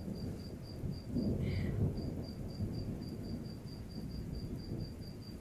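Low rumbling background noise that swells and fades, with a faint high chirp repeating about four times a second.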